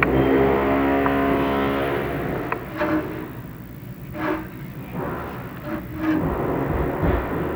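Job-site noise from other trades working: a power tool's motor runs steadily for about two seconds and then stops, followed by scattered knocks and clatter.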